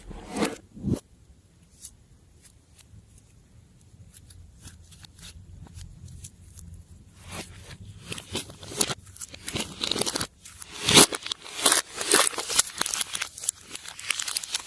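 Slime being worked by hand: a few sticky clicks, then mostly quiet for several seconds, then a dense run of crackling, snapping clicks from about seven seconds in, the loudest near eleven seconds.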